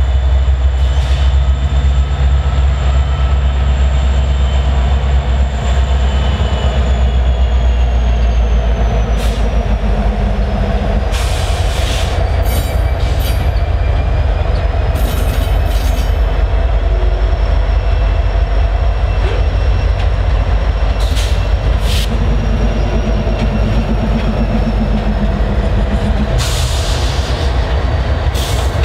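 Norfolk Southern diesel-electric freight locomotives running slowly past, their engines making a loud, steady low drone. A thin, high wheel squeal glides slowly down in pitch, and a few short, high-pitched bursts come from the wheels and cars.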